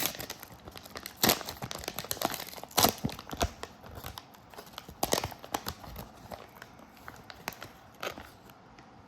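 Plastic wrapper of a trading card pack being torn open and crinkled by hand: a run of sharp crackles that thins out and stops near the end.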